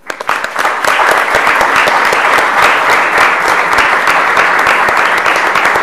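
Audience applauding: a dense patter of many hands clapping that swells within the first second and then holds steady and loud.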